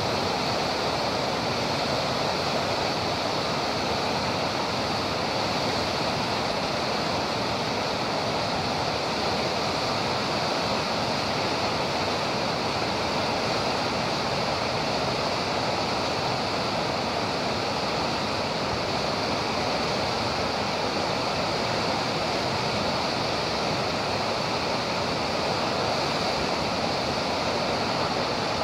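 Dammed river water surging with great force through an open sluice gate into a canal: steady, unbroken rushing of churning whitewater.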